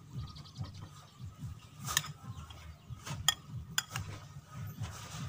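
Knife cutting into a whole raw chicken on a wooden chopping board: a quick run of small clicks near the start, then a few sharp knocks of the blade on bone and board.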